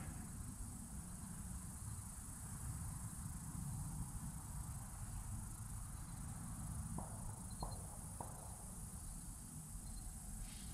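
A steady high-pitched insect chorus from the riverbank, over a low, uneven rumble. Three faint ticks come close together about seven seconds in.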